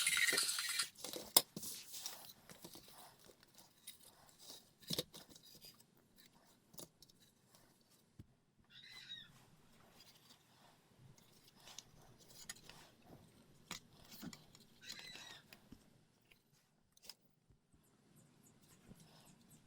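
Small clicks, taps and scrapes of plastic toy parts being handled and taken apart, with a sharper knock about five seconds in and two brief squeaks around nine and fifteen seconds. Music cuts off within the first second.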